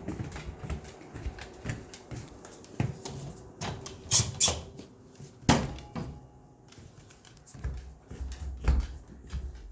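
Scattered sharp clicks and knocks with a squeak, from movement around a house; two loud clicks come close together about four seconds in, another about a second later, and a dull thump near the end.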